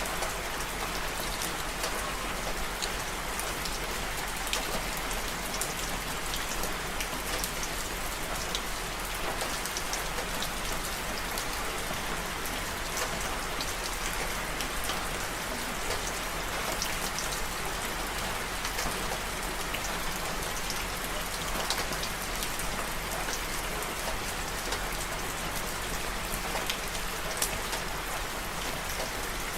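Steady rain falling: a constant hiss with many small drop ticks scattered through it.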